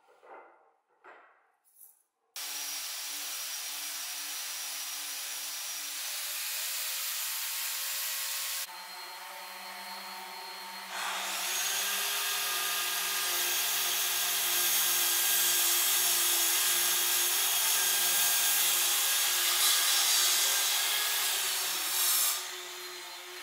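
A woodworking power saw, likely a sliding miter saw, running and cutting wood: a steady whine and rushing noise that starts suddenly about two seconds in and shifts in level a few times. Before it, a few light knocks of wooden pieces being handled.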